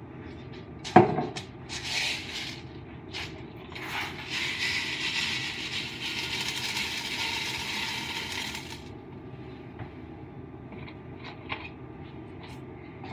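Unpopped popcorn kernels poured from a plastic jar into a cooking pot, a steady dense rattle that lasts about five seconds and stops abruptly. Before it come a sharp knock and a few handling clicks of the jar and spoon.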